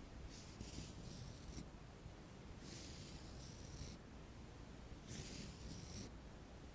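Makeup brush making three slow, soft swishing strokes, each about a second long, with short pauses between.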